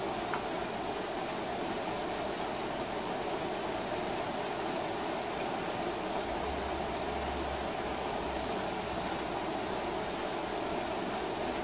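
Steady rain falling, an unbroken even hiss, with a brief low rumble about six seconds in.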